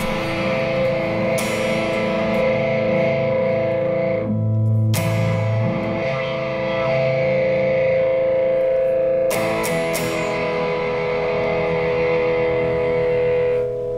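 Electric guitar played through Fairfield Circuitry effects pedals: effected chords left to ring, struck again about five seconds in and again a little after nine seconds.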